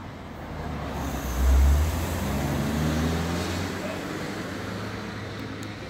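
A motor vehicle passing on a nearby road: a low engine rumble that swells about a second and a half in, then slowly fades away.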